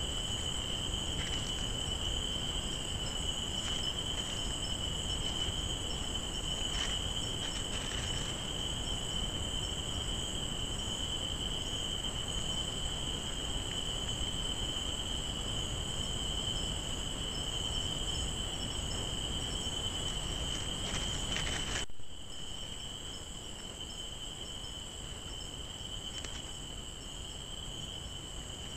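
Nocturnal forest insect chorus: two steady, shrill high-pitched trills over a low hiss, with a few faint ticks. About 22 seconds in the sound drops abruptly and carries on a little quieter.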